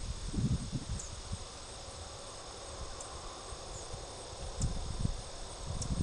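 Crickets trilling steadily in high, even tones, with low wind rumble on the microphone near the start and again near the end.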